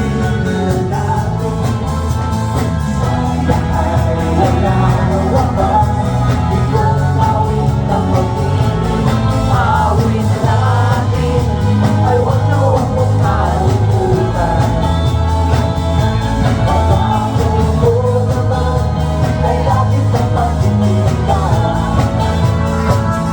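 Loud live band music with a singer: a song with a heavy, steady bass line and vocals over it.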